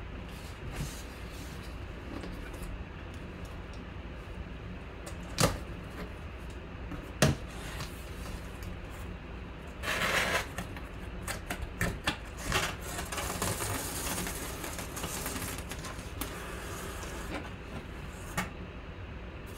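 Cardboard photo box being opened and handled. There are two sharp knocks about five and seven seconds in, then several seconds of cardboard rustling, scraping and clicking as the lid comes off and the contents are reached for.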